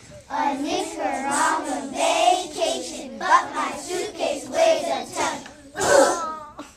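A group of second-grade children chanting a rap together, rhythmic and uneven in loudness, with the loudest burst about six seconds in before the voices stop.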